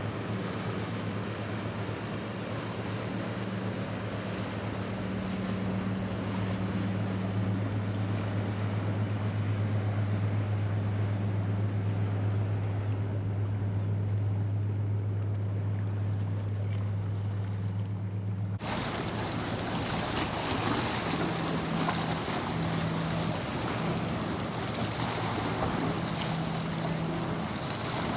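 A boat's engine drones steadily and low over the wash of waves and wind. About two-thirds of the way in the sound changes abruptly to a brighter, louder rush of surf and wind, with the engine fainter.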